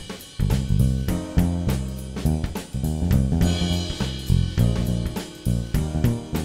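Background music with drums and bass keeping a steady beat.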